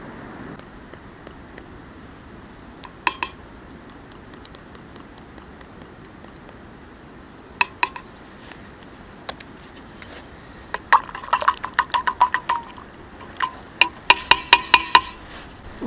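Metal spoon stirring a drink in a steel camp mug, clinking against the mug's sides with a clear ring. A few single taps come first, then two quick runs of clinks, each lasting about a second and a half, in the second half.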